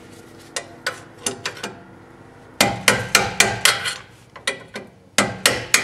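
Hammer tapping a punch, metal on metal, to drive out the retaining clip of a rear brake line. A few single sharp taps come first, then two quick runs of blows.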